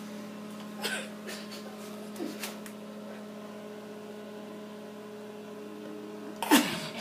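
Steady electrical hum, with a few knocks and scuffs as a rubber plunger is jabbed at a tile floor; the loudest comes near the end.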